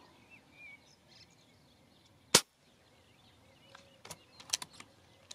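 A single sharp shot from a Reximex Throne Gen2 PCP air rifle firing a 33-grain slug, about two seconds in, loud against a quiet outdoor background.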